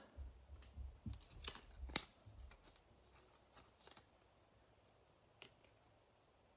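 Faint handling of baseball trading cards: soft clicks and rustles as the cards are flicked through and laid down on the table. The sharpest click comes about two seconds in. After about four seconds it is near silence apart from one small tick.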